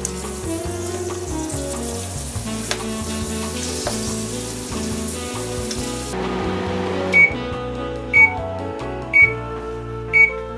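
Hot oil sizzling as duros deep-fry, with background music over it. This stops suddenly about six seconds in, and a microwave oven beeps, one short high beep about every second, four times.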